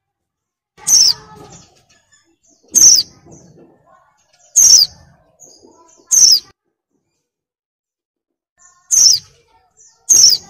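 Female white-eye (pleci) in breeding condition calling: six short, sharp notes, each falling quickly in pitch, repeated about every two seconds. This is the female's call used as a lure to set male white-eyes singing.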